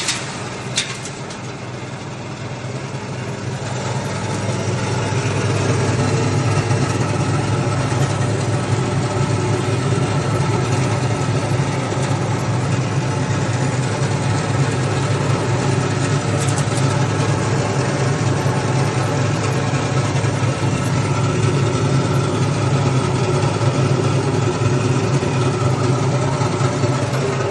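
Small petrol engine running steadily as it drives a candlenut cracking machine, picking up speed over the first few seconds and then holding a constant hum.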